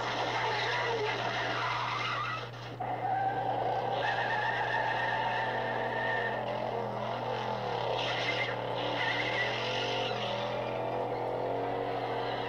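Car-chase soundtrack played from a film on a TV: muscle-car engines revving up and down and tyres squealing, with a short lull about two and a half seconds in.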